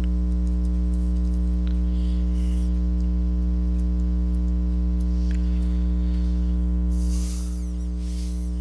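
Steady electrical mains hum with many overtones, picked up on the recording, easing down slightly about seven seconds in.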